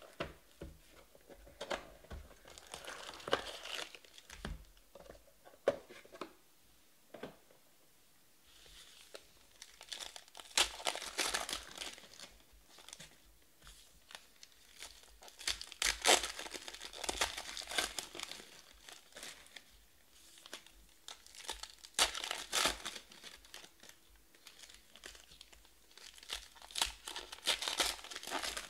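Plastic wrapping on baseball trading card packs crinkling and tearing open in several bursts, with light clicks of cards being handled between them.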